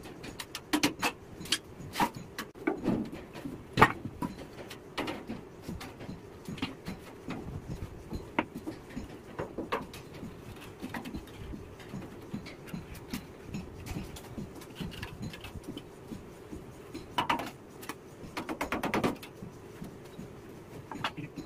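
Irregular knocks, clanks and rattles of a large sheet-metal boat hull plate being bent by hand with wooden planks used as levers, with a couple of longer rattling clatters near the end.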